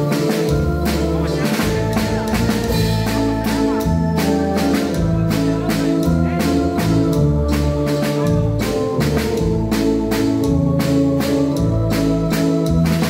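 Live cumbia band playing: timbales and cymbals struck in a quick steady beat over a low bass line and sustained organ-like keyboard chords.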